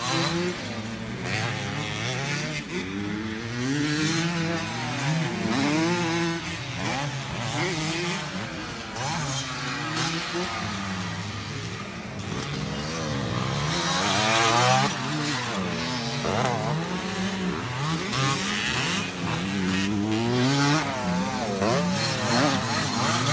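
Several motocross dirt bikes revving hard, their engine pitch repeatedly rising as they accelerate and dropping back as they shift or ease off, with more than one bike heard at once.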